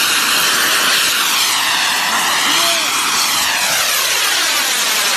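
Jet engine of a single-engine delta-wing fighter at high power as the aircraft climbs steeply away just above the ground. A loud, steady rushing roar whose tone sweeps slowly up and down as the jet moves.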